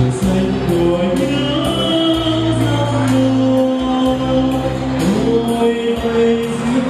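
A man singing into a microphone over a backing track with a steady beat.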